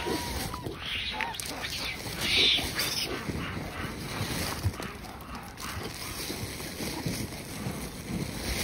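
A large troop of macaques feeding, a continuous hubbub of calls and movement with short shrill squeals about a second in and again, loudest, about two and a half seconds in.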